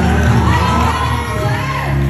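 Audience cheering and shouting in high voices over loud music.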